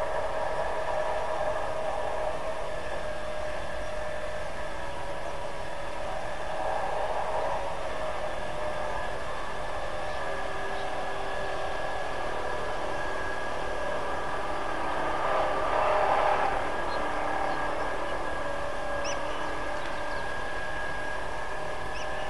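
Steady outdoor ambience from a riverside wildlife camera: a continuous hiss with a drone of several steady hums, swelling briefly about two-thirds of the way through, with a couple of faint high chirps near the end.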